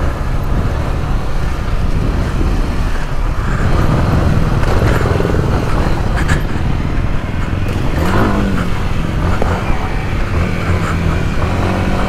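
Yamaha dirt bike engine running hard under throttle on a dirt trail while the rider accelerates to overtake. The revs rise and fall, with one clear rev up and back down about eight seconds in.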